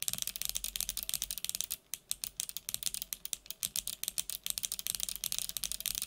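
Kailh BOX Midnight Jade clicky switches, which have a click bar, pressed rapidly and repeatedly without keycaps on a mechanical keyboard. The result is a fast, continuous stream of sharp clicks.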